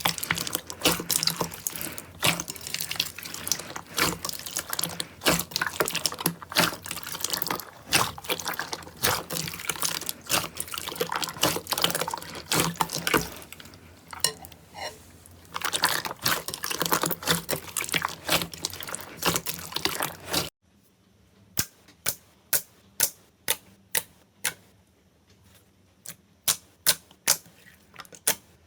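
Slime being squeezed and worked by hand: a dense, wet run of crackling clicks and pops. About two-thirds of the way through it cuts to a quieter clip of separate sharp clicks, a few a second.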